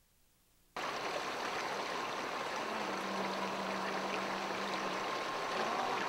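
A stream of running water, which cuts in abruptly just under a second in and then runs steadily.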